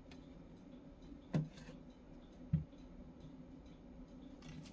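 Faint handling sounds over a low steady hum: a light click, a soft bump, and near the end a short rasp as clear packing tape is drawn off the roll.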